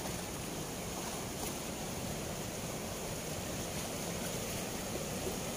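Fast turbulent water pouring through the open sluice gates of a barrage weir: a steady rushing of churning white water.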